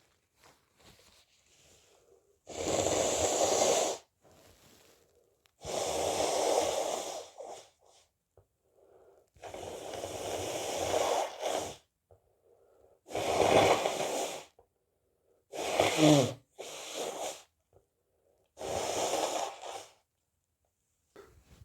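A person blowing their nose hard, about seven forceful blows of a second or two each, with short breaths between. One blow, about two-thirds of the way through, ends in a brief falling voiced sound.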